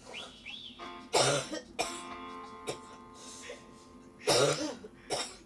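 A woman coughing: two coughs close together about a second in, then two more near the end, over background music.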